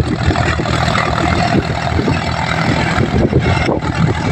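John Deere 5050D tractor's 50 hp diesel engine running steadily under load as it pulls a Mahindra rotavator tilling dry soil.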